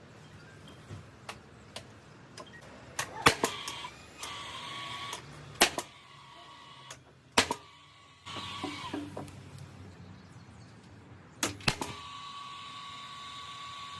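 Sharp knocks and clicks of tool work on wood at irregular intervals, then a steady whine from about twelve seconds in.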